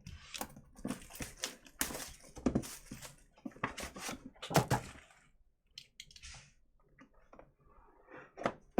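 Trading-card boxes being handled and unwrapped by hand. A quick run of crackles, rustles and knocks from plastic wrap and cardboard lasts for about five seconds, then a few scattered clicks follow.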